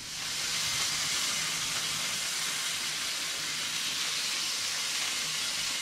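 Oil and garlic sizzling in a hot frying pan: a steady hiss with no breaks.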